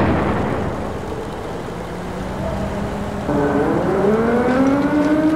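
A rumbling noise dies away, then about three seconds in an air-raid siren winds up, its pitch rising and levelling off.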